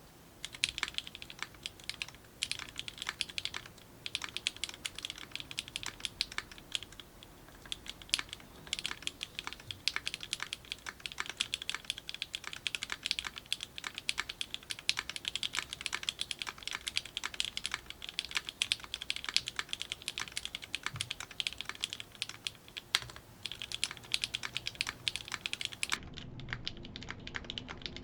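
Custom mechanical keyboard with clacky linear switches being typed on steadily, a dense run of sharp, high-pitched clacks; the clacking gets fainter near the end.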